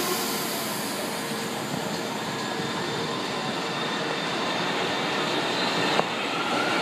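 São Paulo Metro Line 1 train running along the platform: a steady rumble of wheels and rail noise that slowly grows louder, with a short sharp click about six seconds in.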